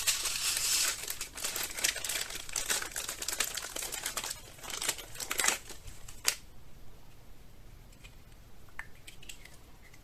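Clear plastic packaging bag crinkling and rustling in the hands as a small item is unwrapped, for about five and a half seconds. A single sharp click comes about six seconds in, followed by quieter handling with a few faint ticks.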